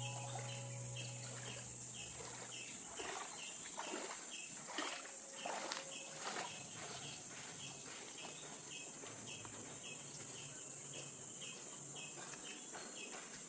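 Steady high-pitched insect chorus with a short chirp repeating about twice a second, and a few soft knocks near the start. Background music fades out in the first few seconds.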